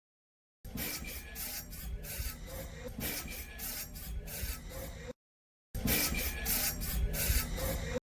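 Brakes rubbing and scraping on a turning wheel, in two stretches of about four and a half and two and a half seconds, each cut off abruptly.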